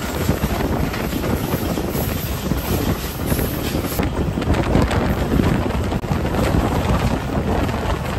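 Steady wind rush buffeting the microphone over the low rumble of a moving passenger train.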